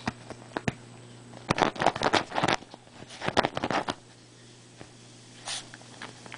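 A dog scratching and digging at couch cushions: two flurries of rapid scratching, about one and a half seconds in and again about three seconds in, with a few lighter scrapes around them.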